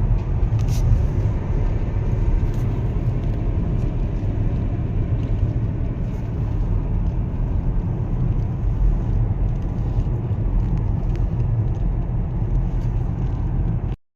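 Steady low rumble of road and engine noise heard from inside a moving car, cutting off abruptly near the end.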